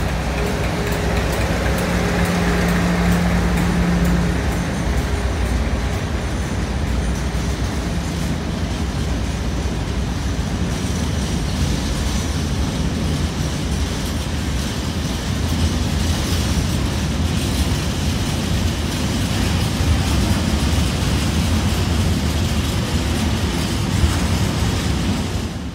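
Freight train of open box wagons rolling past behind a Class 56 diesel locomotive. The locomotive's engine note fades over the first few seconds, leaving a steady rumble of wagon wheels on the rails with faint clicks.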